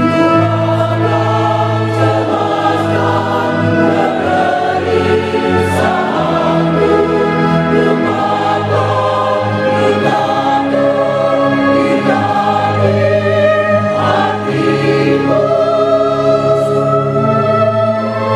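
Church choir singing a hymn in parts, accompanied by an electronic organ holding sustained chords and bass notes.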